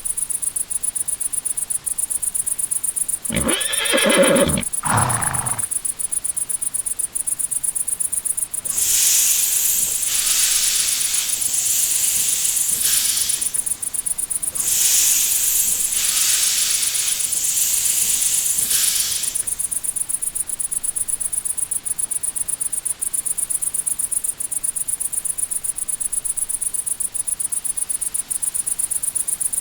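Crickets chirping steadily in a fast high pulse. About three seconds in, a horse whinnies once, falling in pitch. Later a loud hiss comes and goes in several bursts for about ten seconds.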